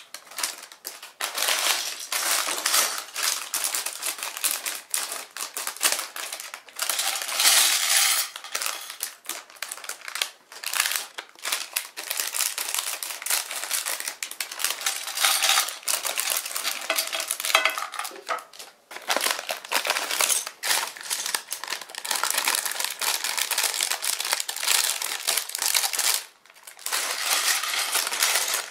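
Thin plastic bags crinkling as they are cut open with scissors and shaken out, with small plastic building bricks clicking and clattering onto a porcelain plate.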